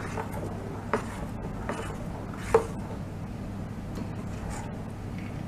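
A spoon stirring thin rice batter in a bowl, with a few light knocks of the spoon against the bowl, the loudest about two and a half seconds in.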